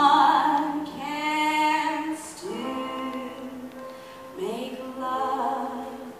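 A woman singing solo, holding a run of long sustained notes, softer toward the end.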